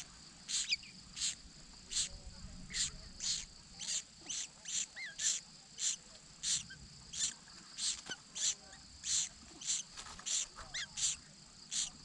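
Insect chorus: a steady high drone with sharp chirps repeating about twice a second, and a few faint bird calls that slide in pitch.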